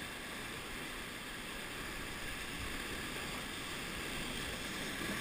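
Whitewater rapids rushing around an inflatable raft: a steady hiss of churning water that grows slightly louder near the end.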